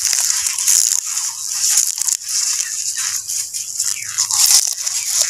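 Banana leaves rustling and crinkling as a leaf-wrapped parcel is pressed down into a green bamboo tube. Birds call in the background, a few of the calls falling in pitch, the clearest near the end.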